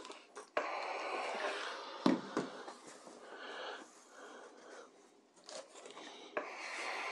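Steam iron hissing as a skirt dart is pressed on a sleeve board, with a few sharp knocks. The hiss fades around the middle and comes back steady near the end.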